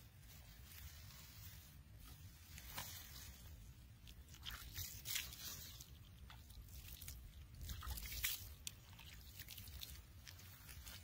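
Hands scooping and packing loose, dry, crumbly soil: faint gritty crunching and scraping in irregular strokes.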